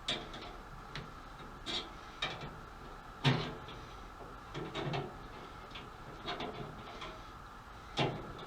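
Scattered clicks and clunks of dryer parts and tools being handled during disassembly, about ten separate knocks, the loudest about three seconds in.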